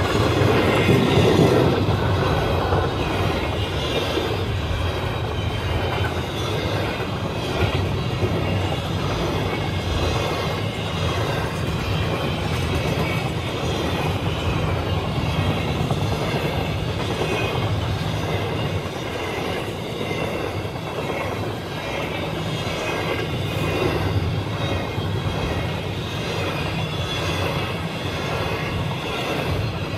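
CN freight train cars rolling past on the rails: a steady rumble with wheel clatter over the rail joints and some wheel squeal.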